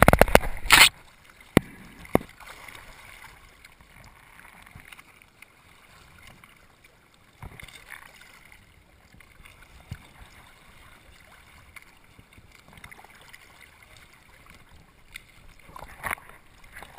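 Sea water splashing and sloshing around a camera at the ocean surface, heard through its waterproof housing: loud splashing in the first second, then quieter lapping and gurgling with a few knocks.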